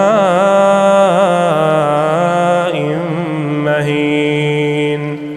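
A man's voice reciting the Quran in melodic tajweed. He draws out long, ornamented notes that waver in pitch on the words 'ma'in mahin'.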